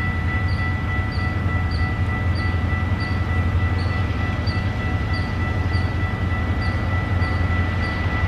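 Railway level-crossing bell ringing steadily, about two strokes a second, over the low rumble of an approaching diesel freight train.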